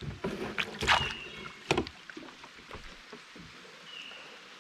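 Water splashing and handling knocks, sharpest about a second in and just before two seconds, then a faint steady hiss of light rain.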